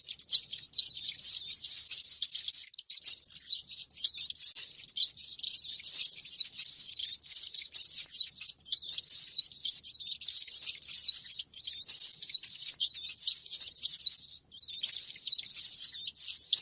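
Rats squeaking: a dense, unbroken chatter of many short high-pitched squeaks and chirps, the kind of rat-call recording played to lure rats to a trap.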